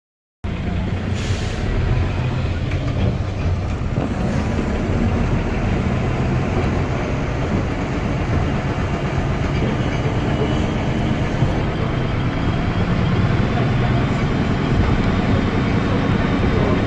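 Guy Arab III double-deck bus's diesel engine running steadily with a low drone; it cuts in suddenly just after the start.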